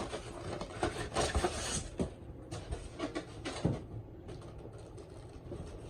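Packaging and fan parts being handled: irregular crinkling rustles and light clicks and knocks, busiest in the first two seconds and again around three seconds in, then tapering off.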